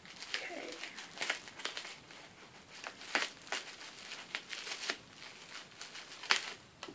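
Gift wrapping being slowly unwrapped by hand: irregular crinkling with sharp crackles and small tears.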